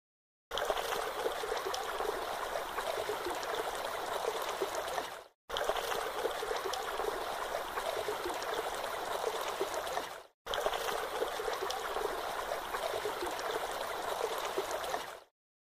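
Babbling stream sound effect: running water played in three stretches of about five seconds each, each cut off abruptly with a short silent gap before the next.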